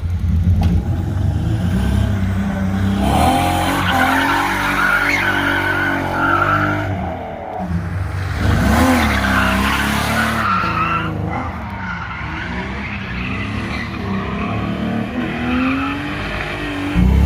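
BMW E36 drifting: the engine revs up and down hard while the rear tyres squeal in a long slide from about three seconds in, easing off after about eleven seconds, then fainter squealing and engine as it comes out of the slide.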